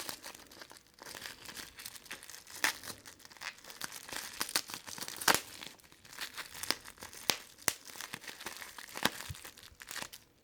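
Plastic or paper packaging crinkling and tearing as it is handled: an irregular run of sharp crackles and snaps.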